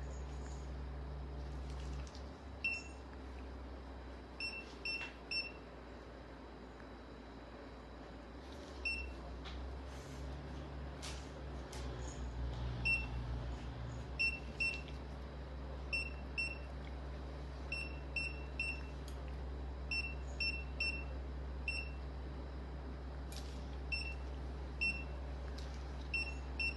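Short, high electronic beeps, sounding singly or in quick pairs and threes at uneven intervals, over a steady low hum.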